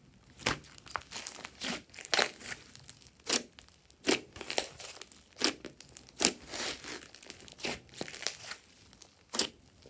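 Thick purple slime studded with small foam beads being squeezed, stretched and pressed by hand, giving a string of short crackling pops, one or two a second.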